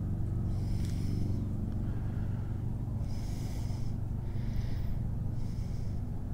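A man's breathing close to the microphone: about four loud breaths through the nose, over a steady low hum.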